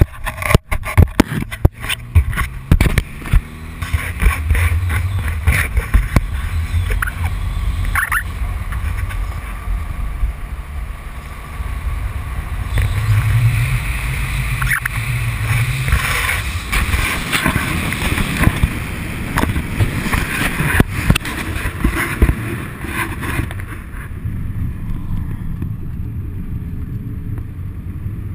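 Subaru Impreza's flat-four engine running and revving as the car drives, heard through heavy wind buffeting on a camera held outside the car on a pole. A run of sharp knocks in the first couple of seconds, and the engine note rises about halfway through.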